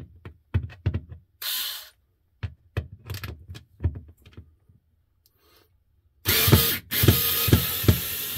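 Small cordless drill/driver backing a screw out of a refrigerator's plastic rail: clicks and knocks as the bit is set on the screw, a brief spin about one and a half seconds in, then a steady run from about six seconds in with a regular knock about three times a second.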